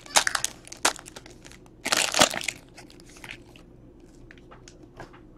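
Foil trading-card pack wrapper crinkling and tearing as it is pulled open by hand. The loudest crinkling comes about two seconds in, then it dies down to a few faint rustles.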